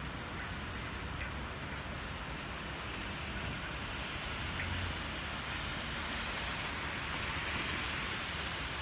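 Hail and rain falling steadily, an even hiss with a few faint ticks of pellets striking.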